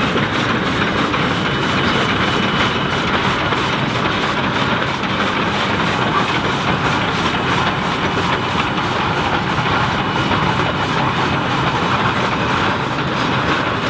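Heisler geared steam locomotive running past with its train, a steady working sound with a rapid, even beat.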